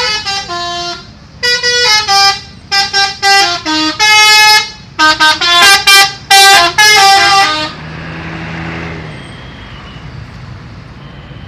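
A vehicle's musical horn playing a quick tune of short, loud notes at changing pitches, stopping about eight seconds in and leaving steady engine and road noise.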